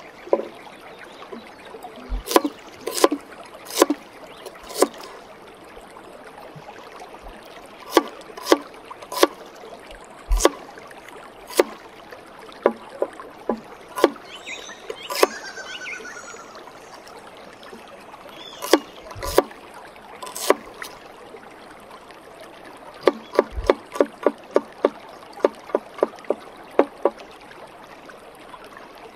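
Large forged chef's knife chopping shallots and garlic on a wooden chopping board: sharp knocks of the blade meeting the board, scattered at first, then a quick run of chops at about three a second near the end, over a steady hiss.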